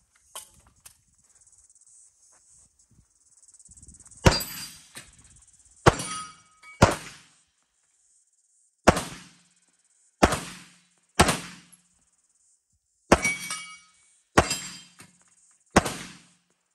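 Pistol fired in single shots, about nine of them starting some four seconds in, spaced one to two seconds apart, each shot dying away over about half a second.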